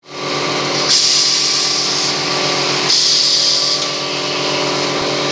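Semi-automatic thermocol plate making machine running with a steady mechanical hum. Two loud bursts of hissing, each about a second long, come about a second in and again about three seconds in.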